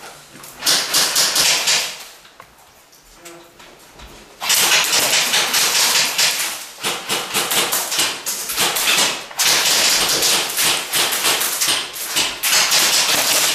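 Airsoft guns firing on full auto, a rapid clatter of shots: one burst of about a second near the start, then from about four and a half seconds in near-continuous fire with only short breaks.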